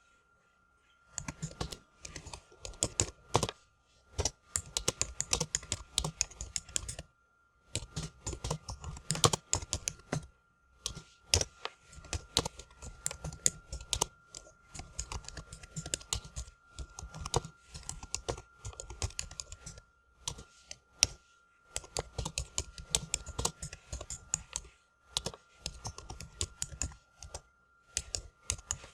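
Typing on a computer keyboard: fast runs of key clicks lasting several seconds, broken by short pauses, with a faint steady tone underneath.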